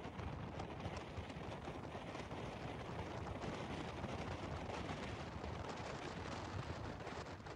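Wind buffeting the microphone of a moving motorcycle, a steady rough rushing with rapid flutters, over the road and engine noise of the ride.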